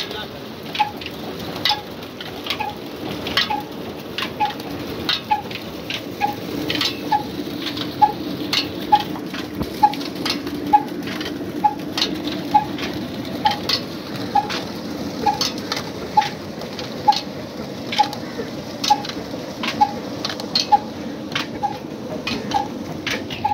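Ruston Hornsby diesel engine running steadily under load, driving a belt-driven tubewell pump, with a sharp regular beat roughly once a second. Over it, a steady rush of pumped water splashing into the basin.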